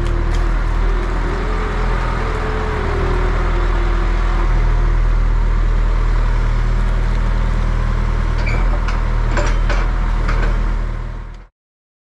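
Diesel engine of a John Deere 3420 telehandler running steadily, heard from inside the cab, with a wavering hydraulic whine as the boom lifts tyres. A few clicks and knocks come near the end, and the sound cuts off abruptly just before the end.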